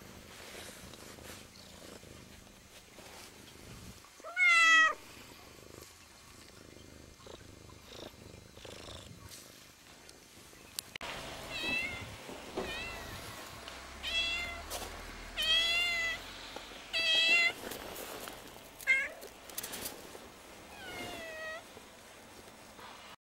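Domestic cat meowing: one loud, drawn-out meow about four seconds in, then about eight shorter meows spread through the second half.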